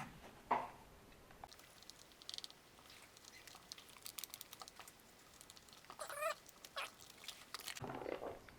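Light clicks, taps and rattles of plastic RC car parts being handled and lined up, with a brief wavering whine about six seconds in.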